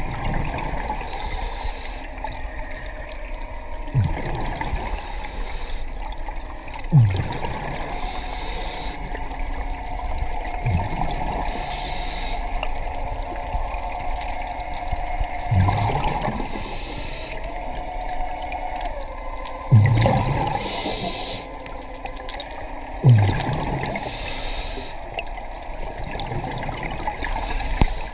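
Scuba regulator breathing heard underwater: a hiss of inhaling, then a burst of exhaled bubbles, repeating about every three to four seconds. A steady tone runs through the middle.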